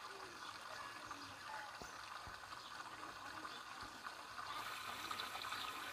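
Faint, steady trickling of running water.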